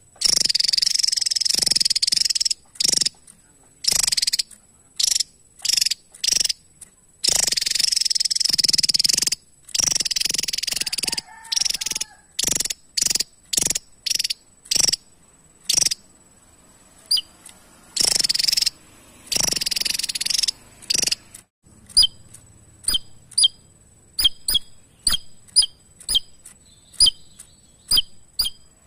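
Javan tesia singing: long bouts of high, rapid twittering broken by short pauses. In the last third these give way to a string of short, sharp chips, about two or three a second.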